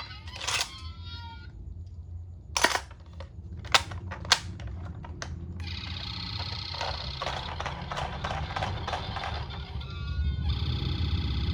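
Toy ambulance minicar: a few sharp plastic clicks and knocks in the first few seconds, then its battery-powered sound unit plays an electronic siren from about six seconds in. The siren breaks off briefly near ten seconds and starts again.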